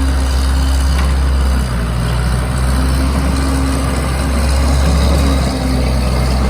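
Case 445CT compact track loader's diesel engine running steadily as the machine pushes and blades dirt, its sound heaviest in a deep, continuous low rumble.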